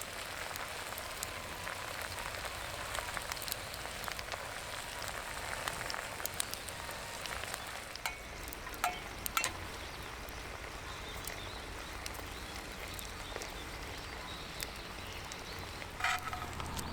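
Food sizzling in a frying pan over a campfire: a steady hiss with scattered sharp pops and crackles.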